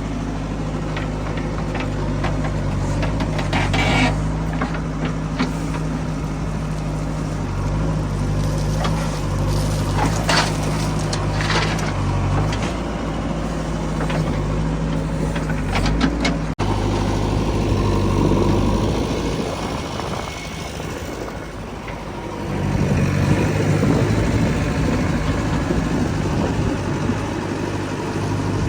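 Heavy diesel engine running steadily, with a few short rattles and clanks along the way. The engine note breaks off abruptly about halfway through, fades, then comes back louder near the end.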